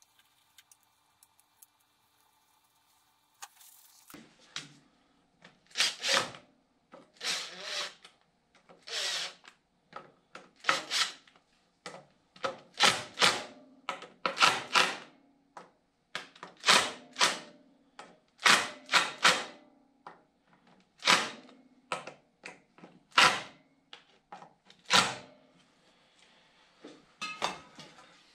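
Gasket maker being squirted onto an excavator's water pump cover in well over a dozen short hissing spurts, one to two seconds apart. The spurts start a few seconds in, as a bead is laid down to form the cover's gasket.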